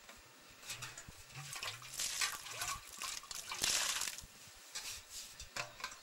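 Water poured from a metal water pot onto loose earth, splashing in uneven gushes, the two loudest about two and three and a half seconds in: wetting the soil to mix mud mortar.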